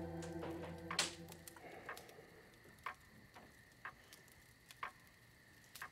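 A clock ticking slowly, about one tick a second, in a quiet room, while soft background music fades out in the first second and a half.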